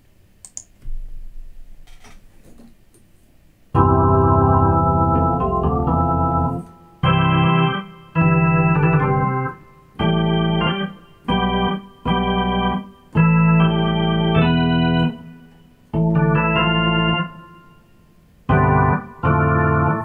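Electronic keyboard set to an organ sound playing a run of held chords, starting about four seconds in. Each chord stops cleanly, with short gaps between chords.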